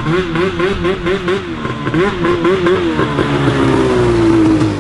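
Snowmobile engine running under throttle, its pitch wobbling rapidly up and down, then falling steadily over the last second or two as the engine winds down.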